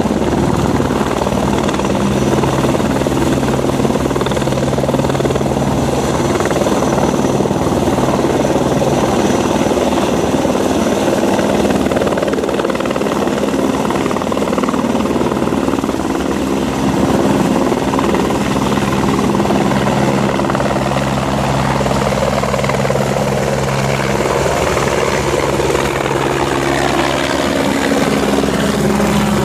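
Helicopter running on the ground, then lifting off and climbing overhead: a steady, loud rotor and engine sound throughout, taking on a sweeping, phasing quality near the end as it passes above.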